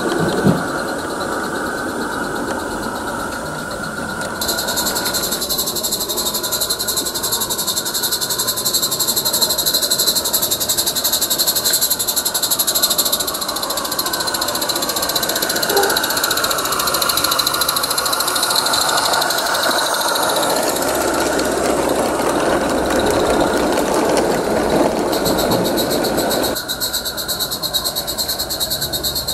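A Roundhouse live steam garden-railway locomotive running with its train: steady rapid exhaust chuffing and steam hiss, with the coaches' wheels rolling over the track.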